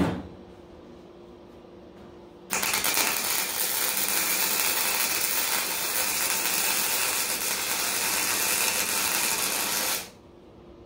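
A brief knock, then an arc welder runs a weld bead for about seven and a half seconds, burning in a tacked joint: a steady crackling hiss that starts and stops abruptly.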